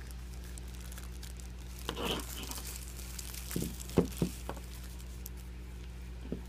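Packaging crinkling and rustling as items are handled in a cardboard box, with a few sharp knocks about four seconds in and another near the end, over a steady low hum.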